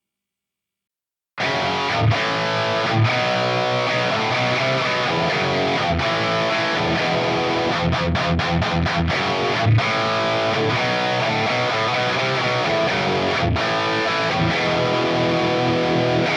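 Electric guitar played through a Valeton GP-200 multi-effects processor on a distorted preset, coming in about a second and a half in after silence. It is a dense riff with heavy low chugs and a quick run of short stop-start hits near the middle.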